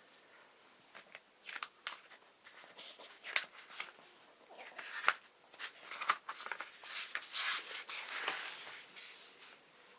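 Paper rustling and crinkling as a plastic-kit instruction booklet is handled and its page turned: a string of small crackles and clicks, with a denser rustle a little over seven seconds in.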